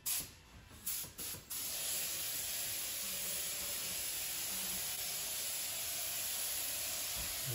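Compressed-air gravity-feed spray gun spraying clear primer onto a vinyl car seat: three short bursts, then a steady hiss of air and atomised primer from about a second and a half in.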